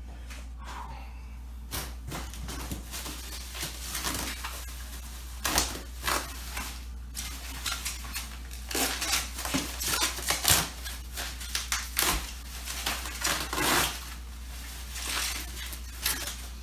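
Bubble wrap and plastic packaging being handled and pulled apart: irregular crinkling, crackling and tearing that starts about two seconds in, over a steady low hum.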